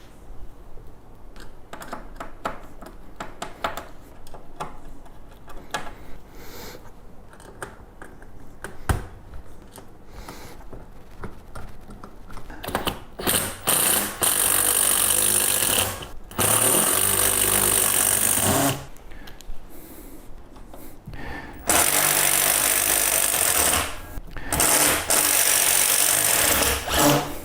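Handheld power drill running in four bursts of about two seconds each, driving fasteners, preceded by light clicks and knocks from handling parts.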